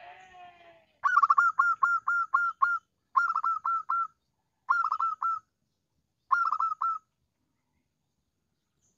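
Zebra dove (perkutut) calling: a faint gliding note at the start, then four quick runs of short, evenly repeated coos, the first run the longest. It is a lure call meant to draw a rival dove.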